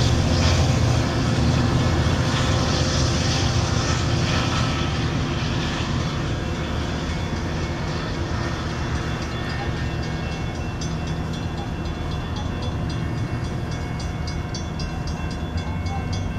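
Metrolink commuter train passing close by: the diesel locomotive's engine running as it goes past, then the bilevel coaches' wheels rolling on the rails, easing off slowly. From about ten seconds in there is a fast, even high clicking.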